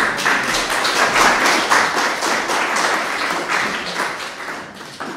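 Audience applauding: many hands clapping steadily, then thinning out near the end.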